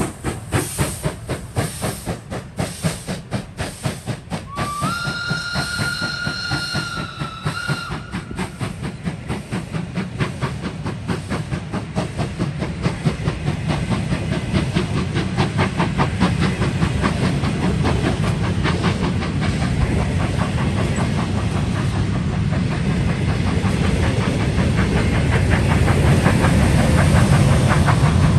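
Steam locomotive SJ B 1323 pulling a train away, with rhythmic exhaust chuffs and hiss. About five seconds in it sounds its steam whistle, one held tone lasting about three seconds. The chuffing then gives way to the steady rumble and clatter of the coaches rolling past, which grows louder near the end.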